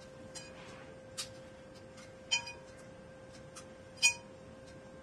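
Small flush cutters clicking as they snip resin supports off a 3D print: a few sharp clicks with a brief metallic ring, the loudest about four seconds in, over a faint steady hum.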